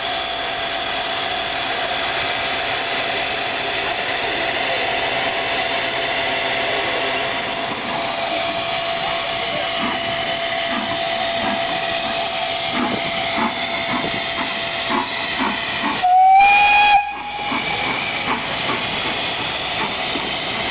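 Narrow-gauge steam locomotive hissing steam steadily with a faint held tone. About 16 s in it gives one short whistle blast of about a second, rising slightly in pitch, louder than everything else.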